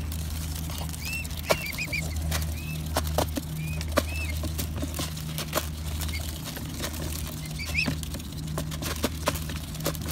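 Mute swan cygnets feeding from a plastic tub of grain: irregular sharp clicks and rattles of their bills pecking at the grain and knocking the plastic, with short high peeping calls now and then. A steady low drone runs underneath.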